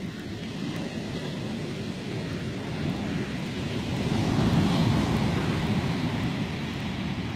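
Ocean surf washing onto a sandy beach, swelling as a wave breaks about halfway through, with wind rumbling on the microphone.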